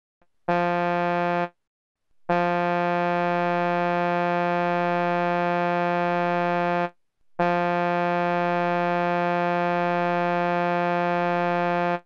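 Synthesized steady buzzy tone, a low pitch rich in harmonics, played three times: a one-second note, then two long notes of about four and a half seconds each with short gaps between. They are the same periodic waveform with its phases rotated by the Hilbert transform, so all three sound alike.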